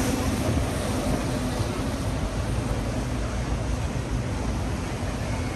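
Steady busy city-street traffic noise: a low rumble of passing vehicles with a hiss over it.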